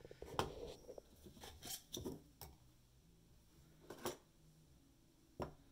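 A handful of faint, scattered clicks and taps from handling a ball of yarn and setting it on a small digital scale to weigh it, the clearest about four seconds in and just before the end.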